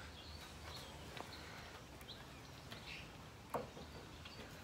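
Faint outdoor background with a small bird chirp, and a few light knocks of a wooden rail being shifted into place on the obelisk frame, the clearest about three and a half seconds in.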